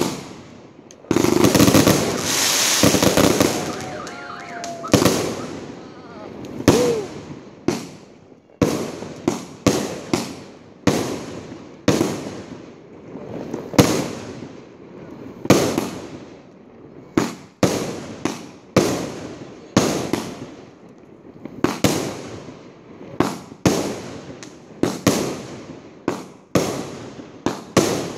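A 250-shot fireworks cake firing a barrage: a dense flurry of bangs and crackle in the first few seconds, then one shot about every second, each bang trailing off.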